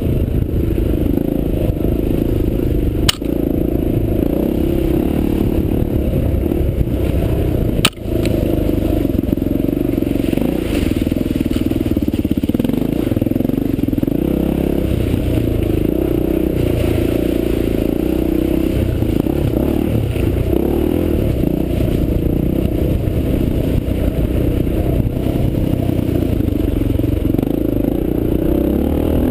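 Honda XR400's air-cooled single-cylinder four-stroke engine running steadily under load as the dirt bike is ridden over a rough trail, with two sharp knocks about three and eight seconds in.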